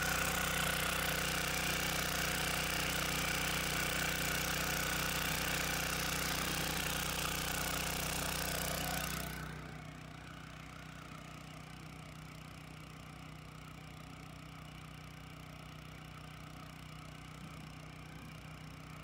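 Small Hangkai four-stroke outboard motor running steadily under way, with water splashing and hissing close by. About nine and a half seconds in it becomes quieter and more distant, while its steady running note carries on.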